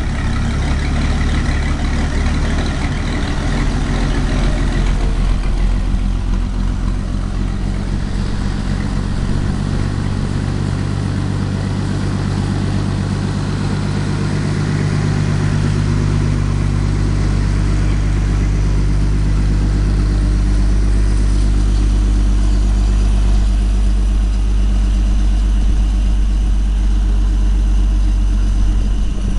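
Rebuilt Continental F227 six-cylinder flathead engine running steadily on a test stand during its first start-up and tune, the note settling after about five seconds.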